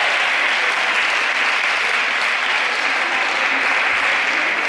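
Theatre audience applauding steadily at the close of a belly dance performance: dense, even clapping.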